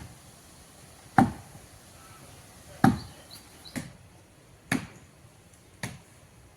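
Axe chopping into the wood of a tree trunk: six sharp strikes, about one a second, unevenly spaced.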